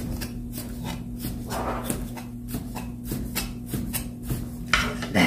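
Chinese cleaver scoring squid on a wooden cutting board: light, even knocks of the blade on the board, about three a second, over a steady low hum. A louder rustle comes near the end.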